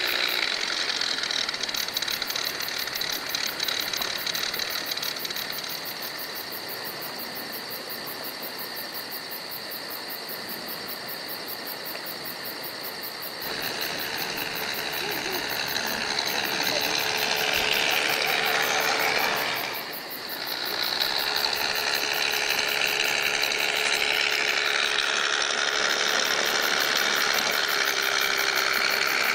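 Scale RC Jeep Wrangler JK Rubicon's onboard engine-sound module playing a simulated engine running as the truck crawls. It gets louder about halfway through and dips briefly a little later.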